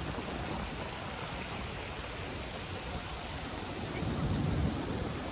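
Steady outdoor background noise of a city pedestrian area, an even hiss with a low rumble swelling briefly about four seconds in.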